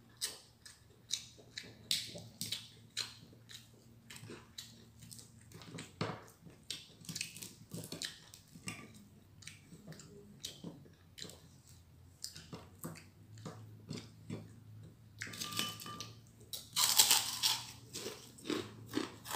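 A person eating close to the microphone: many quick bites, crunches and smacking chews, with a couple of louder, longer noisy bursts near the end.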